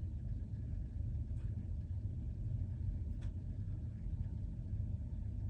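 Steady low rumble with two faint clicks, one about a second and a half in and one about three seconds in.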